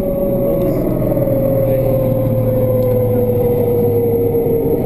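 Motor vehicle engine running with a steady hum that slowly drops in pitch, over a dense low rumble, muffled.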